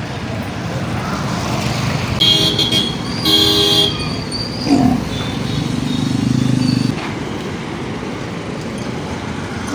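Road traffic noise with two vehicle horn toots about two and three seconds in. A short falling sound follows near five seconds, then a steady low hum for about a second and a half.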